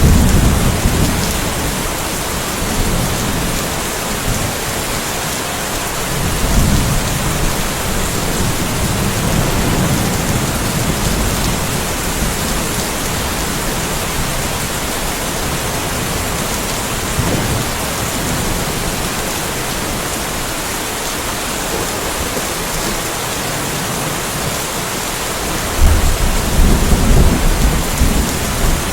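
Steady rain falling through a light thunderstorm, with low thunder rumbling at the start and again a few seconds later. A louder roll of thunder sets in near the end.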